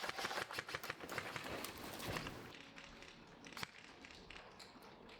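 Footsteps crunching quickly over dry dirt and gravel, with gear rattling, dying down after about two and a half seconds. One sharp click follows about a second later.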